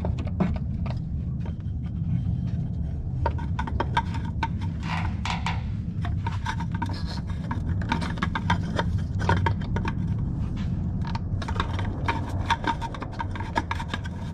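Oil filter housing cap being screwed by hand into its mount, with rubbing, scraping and many small clicks as it turns. A steady low hum runs underneath.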